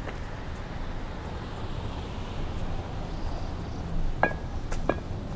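Street ambience: a steady low rumble, broken about four seconds in by two sharp clinks, half a second apart, each ringing briefly.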